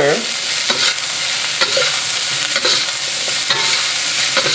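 Metal spatula scraping and turning diced vegetables and Chinese sausage around a hot wok, with a scrape roughly once a second over a steady sizzle of frying.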